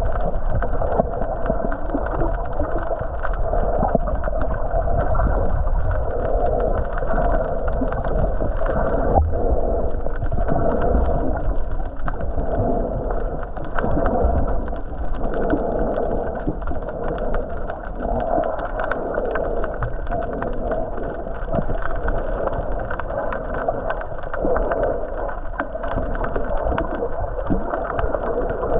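Muffled underwater noise heard through a submerged camera: a steady drone with surging water and gurgling, cut off above the low-middle range.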